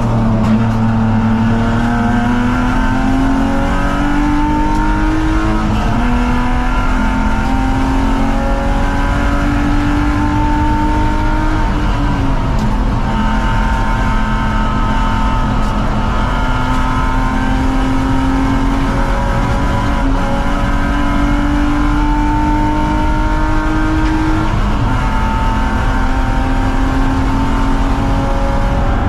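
BMW 330ci's 3.0-litre straight-six racing at full throttle. Its pitch climbs slowly through each pull and drops back at gear changes about 6, 12 and 24 seconds in.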